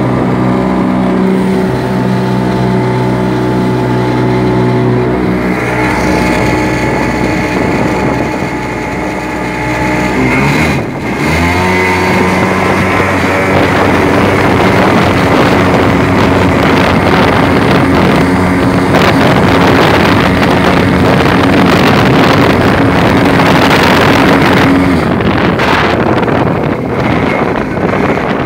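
650cc two-stroke jet ski engine running a small boat under way, its note steady over rushing water and wind noise. About ten seconds in the engine briefly drops, then rises and holds at a louder, higher pitch.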